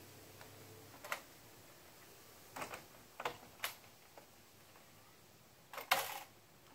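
A few sharp, separate clicks and knocks of metal and plastic kayak-rack hardware being handled, as the Thule Hullavator saddles and kayak stands are worked. The loudest is a brief clatter about six seconds in.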